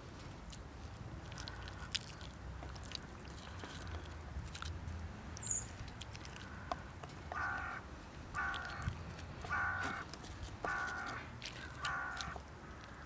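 A bird calls in a run of five harsh, pitched calls about a second apart in the second half, with a few fainter calls earlier, over scattered short clicks and crackles.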